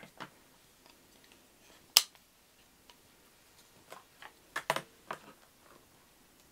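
Tool-handling clicks and knocks on a cutting mat as a rotary cutter and an acrylic quilting ruler are picked up and put down. A single sharp click comes about two seconds in, then a quick cluster of knocks a little before five seconds as the ruler is laid on the paper pattern.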